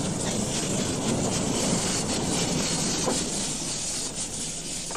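Narrow-gauge steam locomotive moving slowly past close by, with the noise of its steam and running gear.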